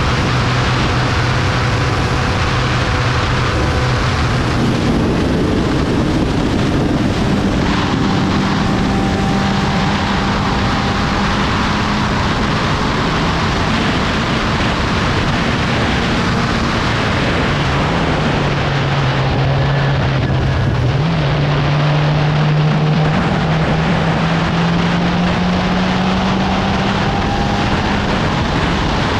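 Onboard sound of a 750 Formula racing car at speed: the engine runs hard under a steady rush of wind over the open cockpit. Its note steps up about five seconds in, drops around seventeen seconds, then climbs slowly near the end.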